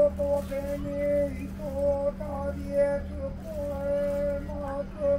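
A man's voice intoning a Shinto norito prayer in long, held chanted tones with slight pitch bends, over a steady low hum.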